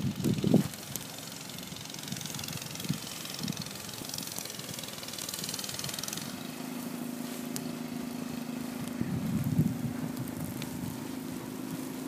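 A small engine, a snowblower, running steadily at constant speed, coming in plainly about halfway through. Wind gusts on the microphone at the start and again near the end.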